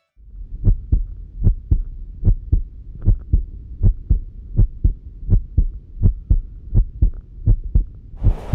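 Train wheels clattering over rail joints, heard from inside the carriage: a muffled double knock about every three-quarters of a second over a dull rumble. Near the end the sound opens up into a full, hissing running noise.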